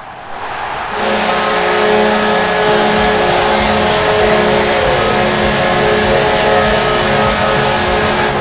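The Minnesota Wild's hockey goal horn blowing one long, steady chord of several tones. It starts about a second in over the noise of a cheering arena crowd that is already rising.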